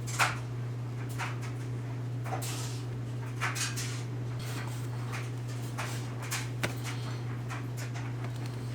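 Leather being worked by hand: a string of short scraping and rubbing strokes at irregular intervals, the sharpest just after the start, over a steady low hum.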